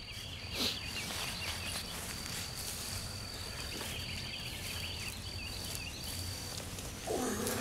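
Outdoor ambience: a high, thin insect trill that breaks off every second or so, with scattered small chirps over a low steady hum.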